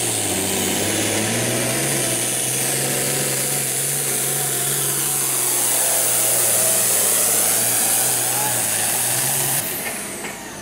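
Modified Farmall 450 hot farm pulling tractor's engine running flat out under load as it drags the weight sled: a steady loud drone with a bright hiss over it. Near the end it drops off suddenly as the tractor comes to a stop at the end of the pull.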